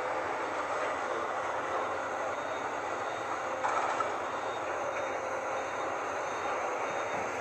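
Komatsu PC200-8 hydraulic excavator's six-cylinder diesel engine running steadily under load while the machine digs and swings, a constant mechanical hum with a faint held tone.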